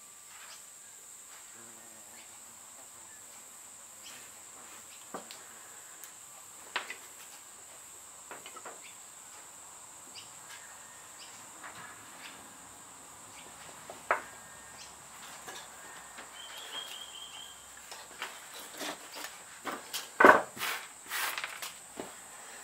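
Small clicks, taps and scrapes of fingers packing sawdust and glue into the holes of a wooden lure body on a workbench, with a cluster of louder knocks and brushing near the end. A steady high cricket chirring runs underneath.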